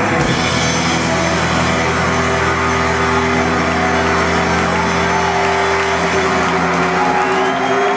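Live rock band with guitars and bass holding one long, droning chord, the dense drumming having given way at the start.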